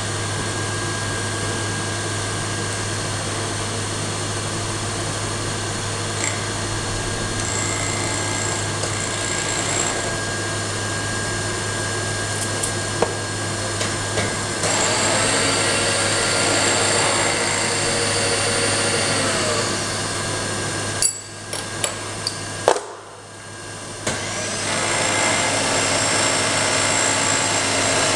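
Vertical milling machine running, its AB Tools Shear Hog cutter milling a block to square it up: a steady motor hum under the cutting noise, which grows louder from about halfway through. About three-quarters through there are a few sharp knocks and a brief lull, then the cutting noise picks up again.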